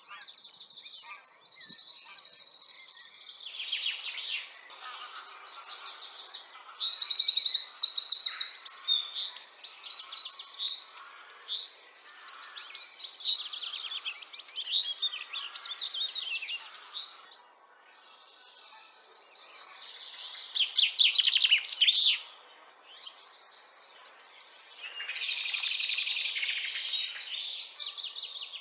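Small songbirds singing and chirping, several voices overlapping in rapid high twitters and trills, loudest about a third of the way in, with a short lull about two thirds of the way through.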